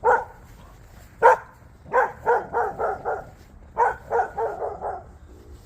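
Pet dog barking at police sirens: two single barks, then two quick runs of about five barks each.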